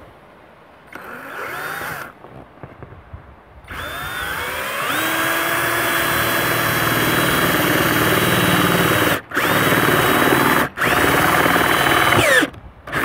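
Handheld electric drill boring into hollow cable trunking: a short spin-up about a second in, then a long run whose whine rises and holds steady, cut by two brief pauses, and winds down near the end.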